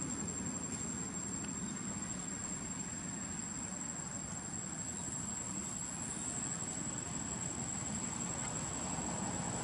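Steady, unbroken high-pitched drone of insects (crickets or cicadas) in woodland, over a low, even background rumble.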